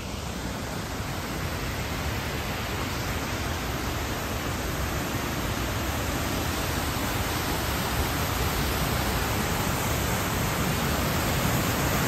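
Waterfall: water rushing over a stone dam spillway in a steady rush that grows gradually louder.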